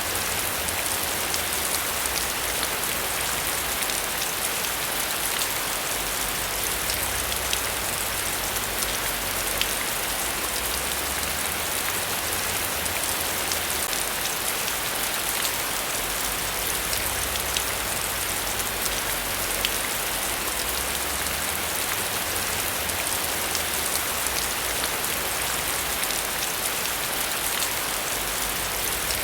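Heavy rain falling steadily, an even hiss with scattered individual drops spattering on a surface.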